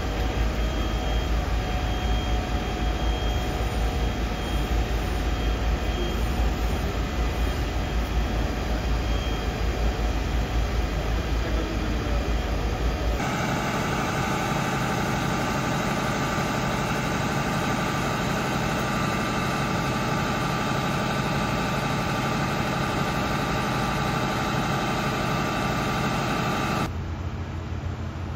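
Fire engine diesel engines running steadily at a fire scene, a continuous mechanical drone. It is a deep rumble at first; about halfway through it becomes a steadier, higher humming drone where a fire engine stands with hose lines attached, its engine driving the pump. It shifts again, quieter, near the end.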